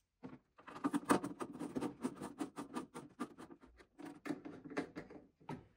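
Quick run of light clicks and scratches from small M3 machine screws and washers being handled and fitted into the cowl, several clicks a second.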